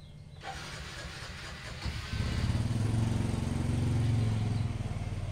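An engine running, a low steady hum that grows louder about two seconds in and eases off near the end.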